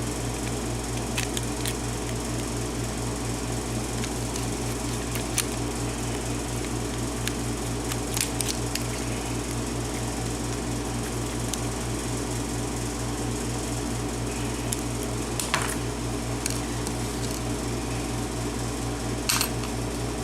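Scattered small clicks and taps of tools and metal parts as a Yale pin-tumbler lock cylinder is taken apart, over a steady background hum.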